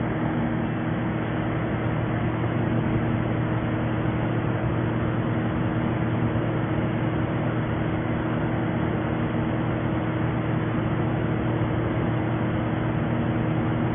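Gold melting furnace running: a steady hum with a constant noisy rush, unchanging throughout, as it heats the raw gold.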